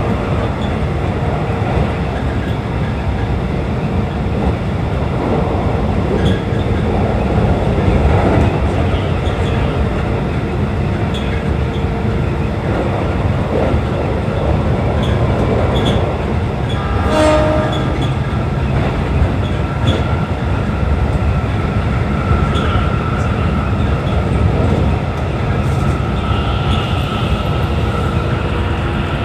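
Keikyu New 1000 series electric train running at speed, heard from the cab: a steady rumble of wheels on rail with occasional clacks. A short horn blast sounds about 17 seconds in, and a steady whine sets in a few seconds later.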